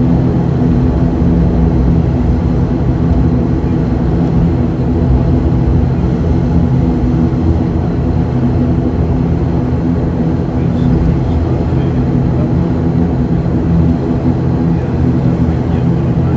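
An ATR 72-600's turboprop engines and propellers, heard as a steady low drone with several stacked tones inside the passenger cabin.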